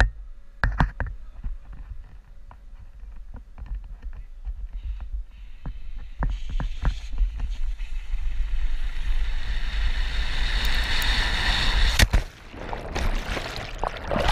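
Mountain-bike tyres rattling and knocking over rough concrete at speed, with wind buffeting a helmet-mounted camera's microphone; the rushing hiss builds as the bike gathers speed. About twelve seconds in there is one sharp impact, then splashing, churning water as the rider plunges in.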